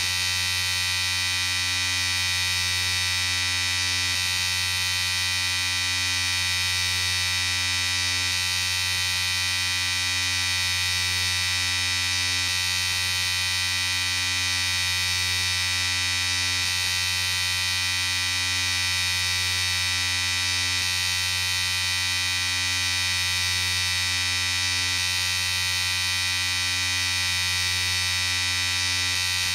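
Electric shaver running with a steady, unchanging buzz.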